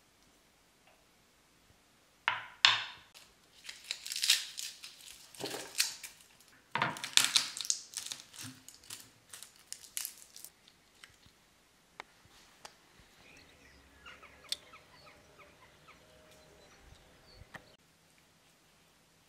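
Papery garlic skins crackling and tearing as garlic cloves are peeled by hand, in several loud bursts over about eight seconds, followed by fainter rustling and light taps.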